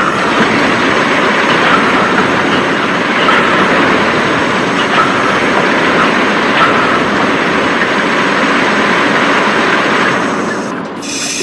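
Steady, dense mechanical running noise of machinery, like works or wheels in motion, with faint higher clinks now and then. It eases off shortly before the end.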